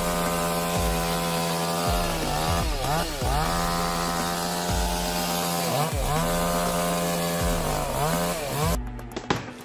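Two-stroke chainsaw running at high revs with a steady pitch, which dips and climbs back three times as the throttle is eased and opened again. The saw cuts off abruptly just before the end.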